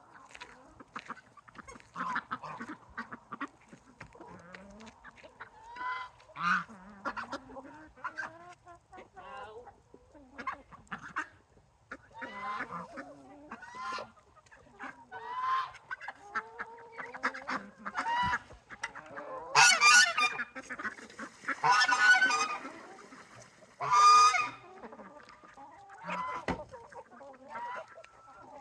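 Geese honking again and again. The calls are loudest in a run of harsh honks about two-thirds of the way through.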